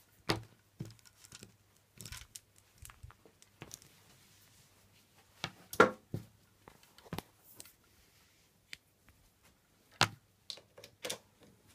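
Scattered, irregular knocks, clicks and rustles of handling as the electric tailor's shears and its cable are moved about on a cloth-covered table. The shears are not running.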